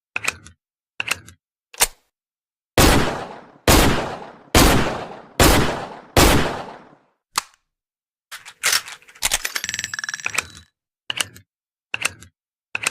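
Taurus Model 605 revolver: a few sharp metallic clicks, then five loud shots a little under a second apart, each trailing off in a long ring. After that comes a single click, about two seconds of metallic clinking and rattling, and three more single clicks.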